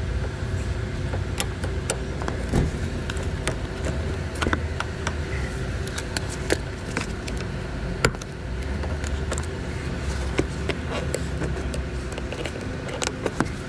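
Scattered sharp clicks and taps of plastic interior trim and a hand trim tool being worked along the headliner edge of a 2016 Toyota Camry. A louder snap comes about 8 seconds in, over a steady low background hum.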